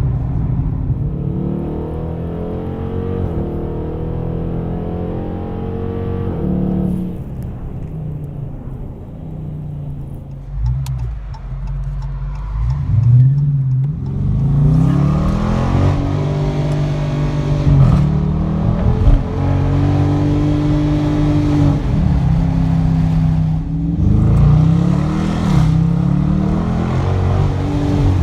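Dodge Challenger's Hemi V8 running loud through its exhaust. It holds a steady pitch at first, eases off, then revs up and falls back several times in the second half.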